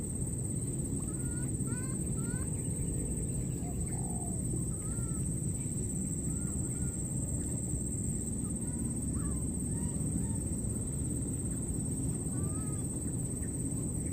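Baby monkeys giving short, faint squeaky calls that rise and fall, scattered through, over a steady low rumble and a constant thin high-pitched whine.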